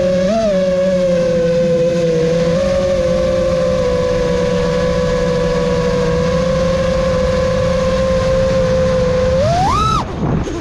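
Electric motors and tri-blade props of a 6S five-inch FPV racing quad (Emax Eco II 2306 1700KV) whining at a steady cruising throttle. Near the end, a throttle punch sends the whine sharply up in pitch, and it drops again just as quickly.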